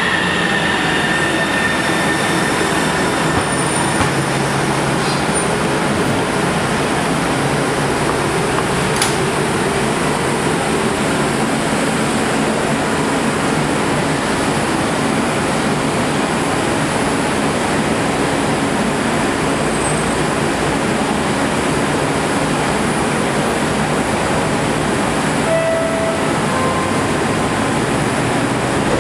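Kinkisharyo light rail train coming to a stop, its motor whine falling in pitch and fading about a second in. The standing train then gives off a steady hiss and hum, with a short tone near the end.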